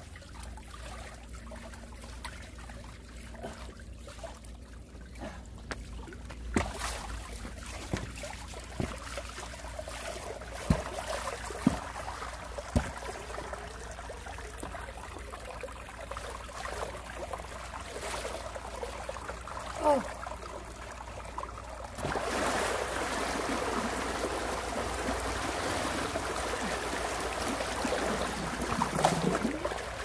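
Water trickling and running in a concrete irrigation channel while hands work in it at a sluice gate, with a few sharp knocks and splashes. About 22 s in, the rush of water becomes louder and fuller.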